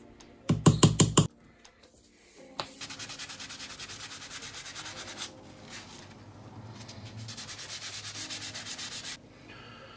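A soft-headed mallet knocks about six times in quick succession on the metal housing of a 1958 Black & Decker drill; these knocks are the loudest sound. A cloth then rubs the drill's wooden front handle in fast back-and-forth strokes, in two spells of several strokes a second with a short pause between.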